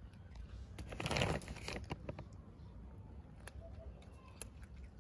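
Cat crunching dry kibble from a plastic bowl, scattered crisp clicks of chewing, with a louder crinkling rustle about a second in that lasts under a second.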